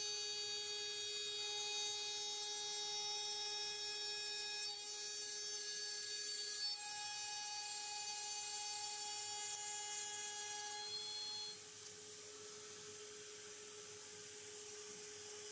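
CNC router running, its AMB/Kress FME1050 spindle giving a steady whine. Higher whining tones start and stop as the machine works, and the sound gets quieter about eleven seconds in.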